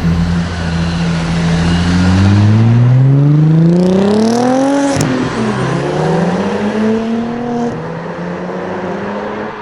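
Audi RS4 B5's twin-turbo 2.7-litre V6 accelerating hard. The engine note climbs for a few seconds, drops sharply at an upshift about five seconds in with a short hiss, then climbs again before easing off.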